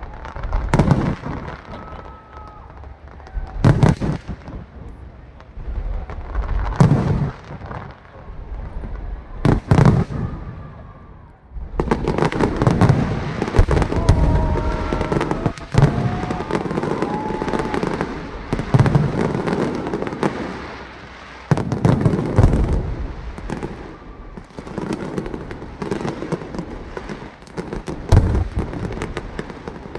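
New Year's fireworks display: single aerial shells bursting with loud booms about every three seconds, then from about twelve seconds in a dense barrage of overlapping bursts and crackle.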